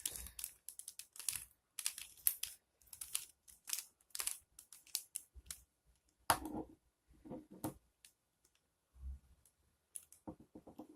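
A 3x3x3 mirror cube being turned by hand: quick, irregular plastic clicks and clacks as its layers rotate, with a louder clack about six seconds in.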